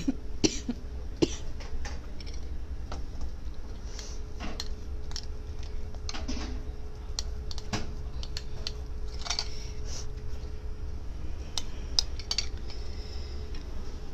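Kitchen utensils and dishes being handled: scattered short clicks and clinks at irregular intervals over a steady hum.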